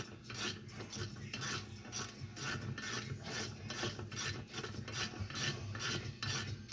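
Craftsman 3/8-inch drive 96-tooth flex-head ratchet clicking through its return strokes as bolts are run back in, a fine rapid ratchet buzz about twice a second.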